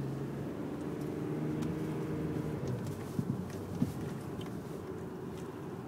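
Car engine and road noise heard from inside the cabin while driving, a steady low hum, with two short knocks about three seconds in.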